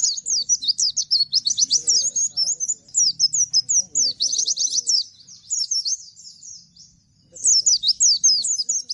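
Caged white-eye (pleci) singing the rapid-fire 'nembak' song: fast runs of high, sharply falling whistled notes. The song breaks off for about a second and a half after some six seconds, then starts again.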